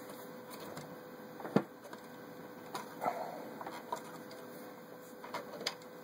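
Scattered clicks and knocks as a hand works at the top of a vintage Necchi Supernova sewing machine, taking out its pattern cam, with one sharp click about a second and a half in. A faint steady hum sits underneath.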